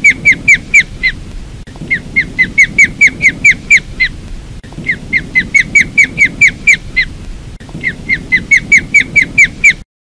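Osprey calling: runs of short, sharp whistled notes, about four or five a second, each dipping slightly in pitch, in four bursts with brief pauses between. It cuts off abruptly near the end.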